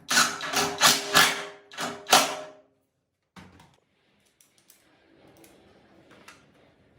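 A metal part struck sharply about six times in quick succession, each knock ringing with a metallic tone, then faint clicks and handling sounds after about two and a half seconds.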